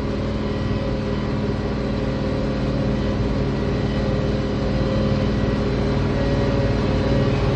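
International Harvester 1566 tractor's six-cylinder turbo diesel running steadily under load, pulling a disc, with a constant, even drone.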